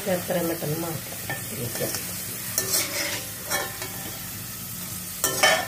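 Potato sticks deep-frying in hot sunflower oil in a metal wok, a steady sizzle, while a slotted spatula stirs and scrapes through them. A few clatters of the spatula against the wok, the loudest near the end as the fried sticks are lifted out of the oil.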